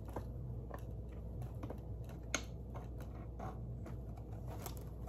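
Small irregular clicks and taps of plastic parts being handled while an arm is worked into place on an animatronic Halloween prop, with one sharper click about two seconds in, over a steady low hum.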